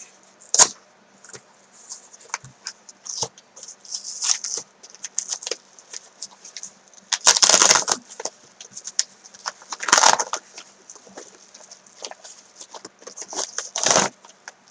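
A small mail package being opened by hand: irregular crinkling, rustling and tearing of the packaging, with louder rips about a third of the way in, halfway through and near the end.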